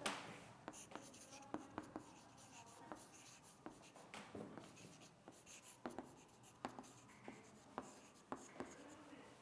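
Faint irregular taps and scratches of chalk writing on a chalkboard.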